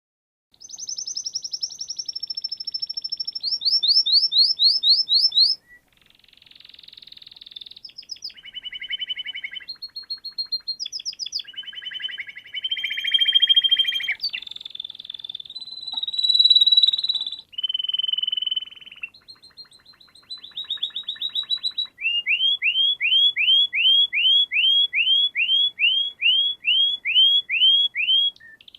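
A songbird singing a long, varied song in which the phrase changes every second or two: strings of quick rising notes, buzzy trills and held whistles. Near the end it settles into a long run of about fifteen rising notes, roughly two a second.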